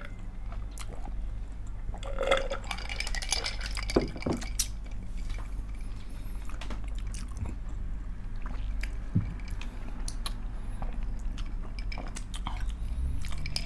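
Drinking through plastic straws from a glass: quiet sips and slurps with small clicks and taps of glass and mouth sounds, over a low steady hum. The busiest slurping comes about two to four seconds in.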